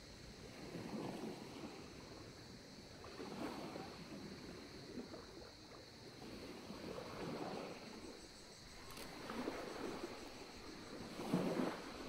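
Small waves lapping onto a pebble shore: a soft rush of water every two to four seconds, the last one near the end the loudest.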